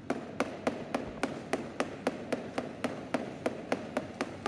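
A small cheese-grading hammer tapping rapidly and evenly on a cheese, about four light knocks a second. This is the grader's tap test, listening to the ring of each knock for hollows or cracks inside the cheese.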